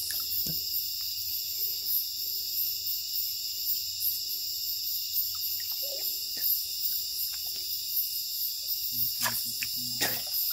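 Night chorus of crickets and other insects: a steady, shrill, layered trill with a faster pulsing buzz above it. A few faint clicks come near the end.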